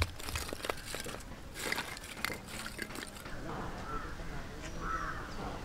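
Lumps of wood charcoal clattering and crunching against each other as they are piled up by hand for a cooking fire, a rapid run of clicks for about three seconds. Then crows caw a few times near the end.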